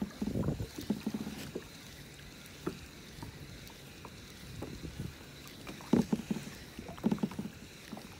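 Water lapping and knocking against a fishing kayak's hull, with irregular dull bumps and splashes; the loudest two come about six and seven seconds in, over a faint steady hiss.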